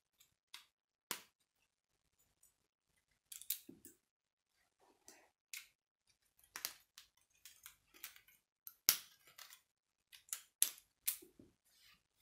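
K'nex plastic rods and connectors clicking and snapping together as pieces are fitted by hand: scattered sharp clicks, a few at first and coming thicker in the second half.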